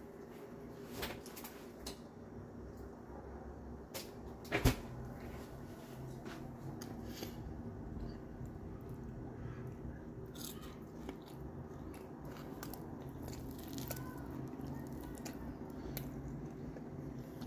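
Close-up eating sounds: chewing and crunching of fried galunggong (round scad) and rice eaten by hand, with scattered small clicks and one sharp knock about five seconds in.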